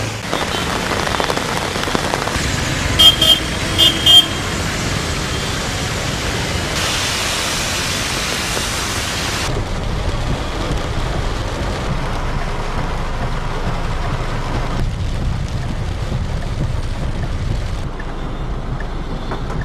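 Heavy rain and slow road traffic, a steady wash of rain and tyre noise on wet roads. A car horn beeps three times, short and loud, about three to four seconds in.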